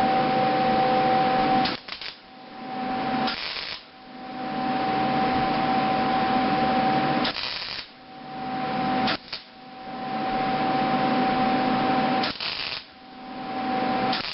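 MIG welder arc crackling and hissing in about five bursts of a few seconds each with short breaks between, a steady whine sounding only while the arc runs. These are a beginner's repeated tack welds joining steel pieces.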